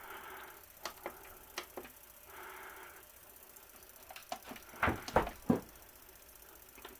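A few light, scattered clicks and knocks in a quiet room, with a soft rustle or breath now and then.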